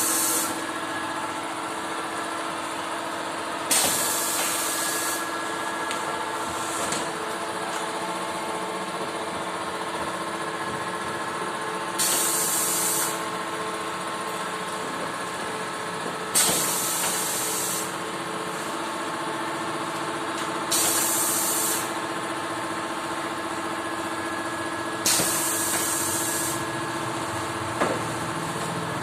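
Semi-automatic screen printing machine running: a steady motor hum with several fixed tones, broken five times by a sudden hiss of air about a second long, every four to eight seconds, as the machine cycles.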